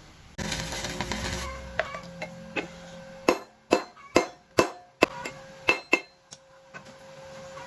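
Steel struck with a hammer: a quick run of about eight sharp clinking strikes, after a short scraping noise, over a faint steady hum.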